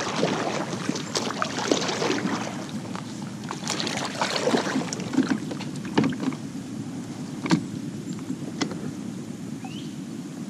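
A kayak moving on the water: irregular splashing and water noise, busiest in the first half, with a few sharp knocks later on.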